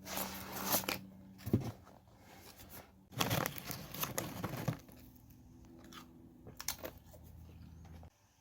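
Paper rustling and crinkling in a few short bursts as book pages are handled and turned, over a faint steady low hum.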